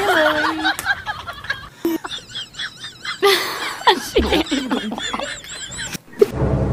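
People laughing: high-pitched snickers and giggles, with a few words mixed in.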